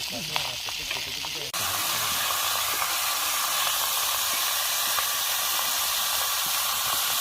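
Fish sizzling as it cooks over a beach campfire: a steady hiss. About a second and a half in, it cuts to a louder, even sizzle that carries on.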